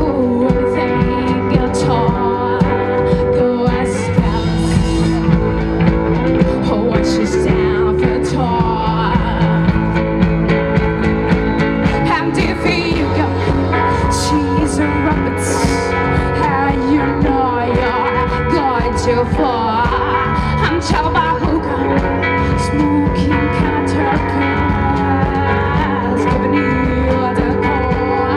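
Live rock band playing loudly: a woman singing over electric guitar, bass guitar, keyboards and drums.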